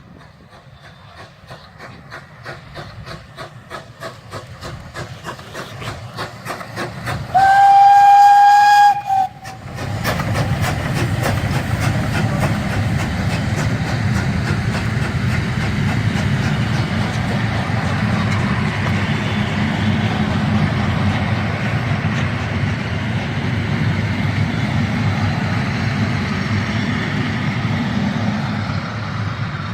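Steam locomotive approaching with a rhythmic exhaust chuff that grows steadily louder, then blowing its steam whistle in one steady note for about two seconds. From about ten seconds in, a loud steady rumble and clatter of the locomotive and carriages rolling past continues, easing slightly near the end.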